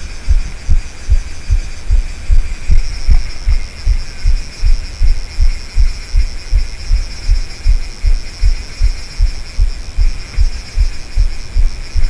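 Dull low thumps repeating about three times a second, under a steady high-pitched buzz that grows louder about three seconds in.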